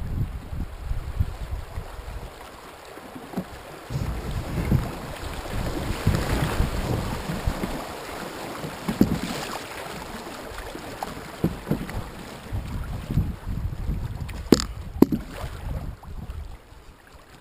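River water rushing and splashing along a canoe's hull as it runs down a shallow riffle, with wind rumbling on the microphone. Two sharp knocks about half a second apart near the end.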